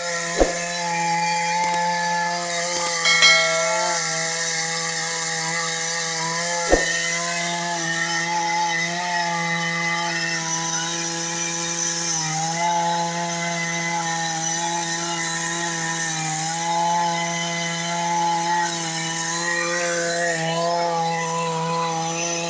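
Chainsaw running steadily at high speed while cutting into a tree, its pitch dipping briefly a few times as the chain takes load in the wood. Two sharp knocks come within the first seven seconds.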